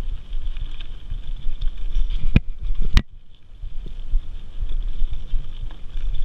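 Mountain bike riding over a dirt forest trail: a steady rumble and rattle from the ride, with two sharp knocks about half a second apart midway through, after which it goes briefly quieter.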